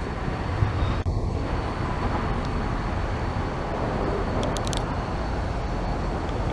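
Steady outdoor background noise with a low, uneven rumble, and a single small click about a second in.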